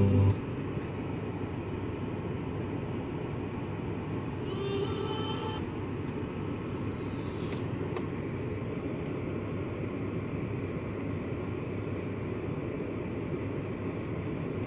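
Car stereo music cuts off just after the start, leaving the steady low hum of the VW Touareg's cabin. A short pitched sound comes about five seconds in, followed by a brief high squeaky glide.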